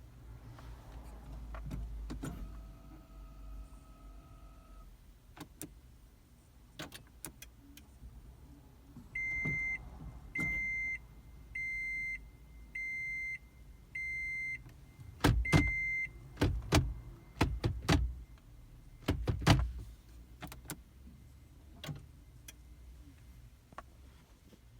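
Electronic warning beeper of a 2010 Toyota Prius sounding six evenly spaced, high single-pitch beeps about a second apart, amid scattered clicks and a few louder knocks near the end of the beeping.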